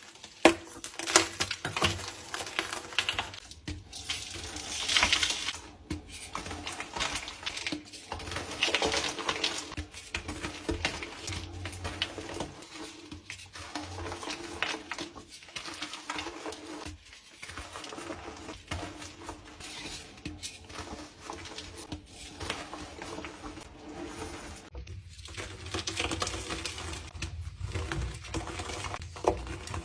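Blocks of dyed gym chalk being crushed and crumbled: a steady run of fine, dry crunching and crackling, with a few sharper snaps.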